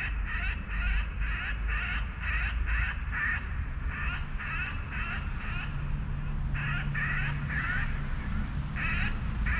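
Electronic anti-bird device broadcasting recorded bird distress calls: a run of short, harsh squawks, about three a second, repeated in groups with brief pauses. It is meant to scare gulls and crows off the field.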